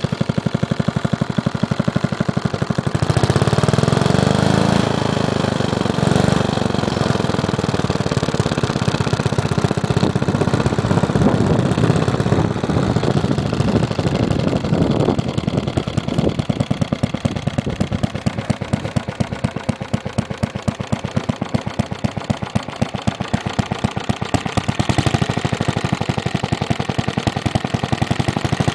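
Johnson Iron Horse 5/8 HP single-cylinder two-stroke engine running with rapid, even firing pulses. Its speed rises and then settles back a few seconds in, then holds steady.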